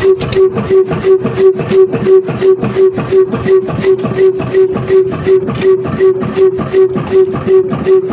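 1947 Ruston Hornsby slow-speed diesel engine running steadily, its exhaust beating evenly about three times a second with a pulsing hum on each beat.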